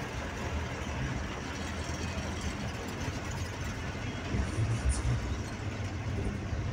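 A bus's diesel engine and road noise heard from inside the driver's cabin while driving, a steady low rumble.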